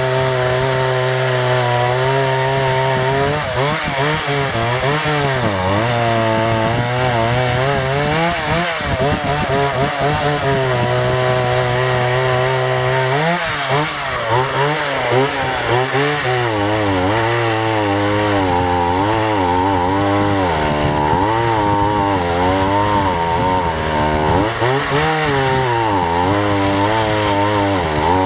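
Chainsaw running hard and cutting trees, its engine note dipping and recovering several times as it loads up in the wood.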